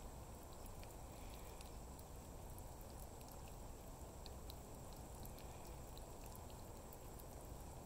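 Faint light ticks of water at a garden drip emitter as cats drink from it, scattered a few times a second over a low, steady outdoor rumble.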